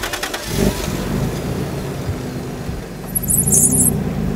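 Vehicle engine running as a truck drives, steady and low, with a short high-pitched sound about three and a half seconds in.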